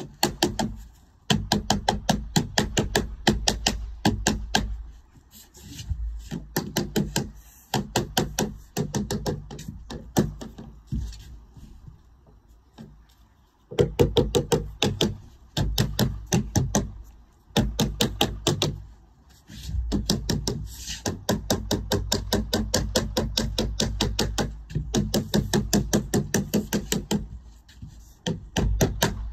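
Rapid runs of hammer taps, about five or six strikes a second, in bursts of a few seconds with short pauses between, as lead capping is worked and fixed.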